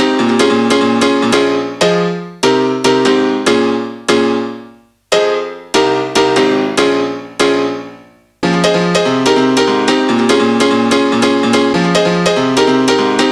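Background music led by piano or electric piano playing chords in a steady pulse, thinning to a few ringing, decaying chords in the middle before the full accompaniment comes back.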